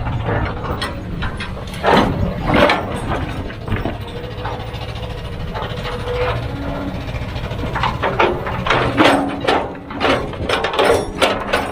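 A heavy machine's diesel engine running steadily, with repeated clanks and scrapes of metal and rock that come thick and fast in the last few seconds.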